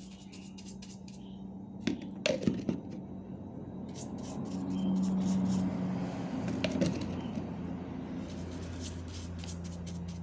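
Small plastic-bristle brush scrubbing the metal base of a gas stove burner in short scratchy strokes. Under it a steady low hum swells louder in the middle and then fades.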